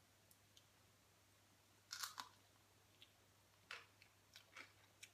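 Faint mouth sounds of someone biting into and chewing a crisp round of black radish topped with mackerel rillettes: a few short crunches, the first about two seconds in.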